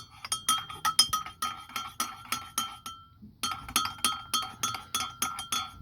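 A spoon clinking rapidly against a mug, as when stirring tea or coffee, each strike leaving a short ringing tone. The clinks come about five a second, break off briefly a little after three seconds in, then resume.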